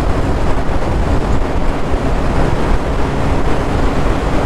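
Motorcycle at highway speed, about 90 km/h: a steady rush of wind on the helmet-mounted microphone over the engine's even drone and tyre noise.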